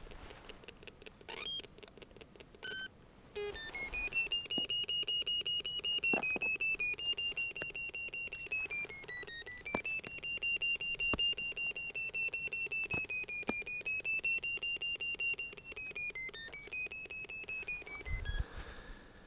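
Electronic beeping of a terrier locator receiver, a rapidly pulsing tone whose pitch rises and dips as it is swept over the den to find the collar transmitter on the jagdterrier underground. A few stepped beeps at different pitches come first, and the steady pulsing tone starts about three and a half seconds in.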